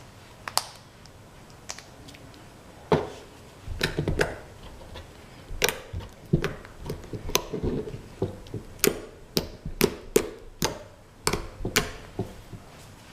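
Slime with foam beads and glitter being worked by hand, giving irregular sharp clicks and short squelchy pops, often several a second.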